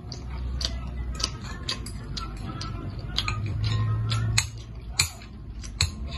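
Fork and spoon clicking and tapping irregularly against a ceramic bowl of noodle soup, several sharp little clicks a second.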